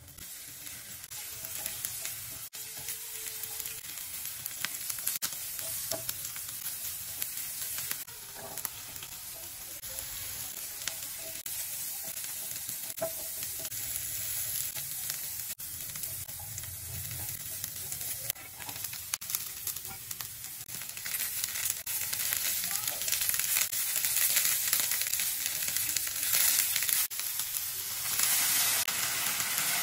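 Chopped onion, carrots and cabbage sizzling in hot oil in a ceramic-coated frying pan as a spatula stirs them, with light scrapes and taps of the spatula on the pan. The sizzle grows louder in the last third.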